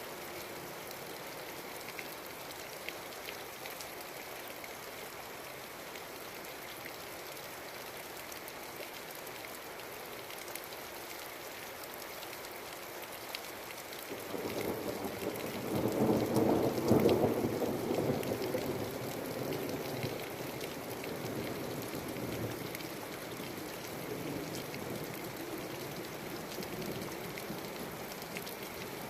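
Steady rain falling, with a roll of thunder that swells about halfway through, peaks a few seconds later and slowly rumbles away.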